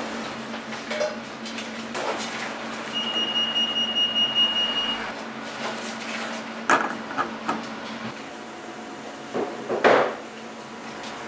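Small stainless-steel saucepan on a gas burner being knocked and scraped by a bowl and spatula as ingredients go in: several sharp clinks and knocks, the loudest near the end. A steady high tone sounds for about two seconds in the middle, over a low steady hum.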